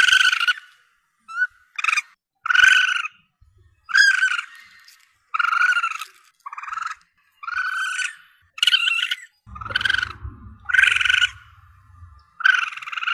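Juvenile Asian palm civet (musang pandan) calling: short, repeated calls about one a second, a recording used as a hunting lure to call civets in. A low rumble runs under the calls for a couple of seconds in the second half.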